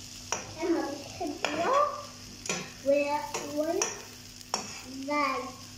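A metal spatula stirring and scraping scrambled egg and tomato in a frying pan, about six strokes with short squeaky tones, over a steady frying sizzle.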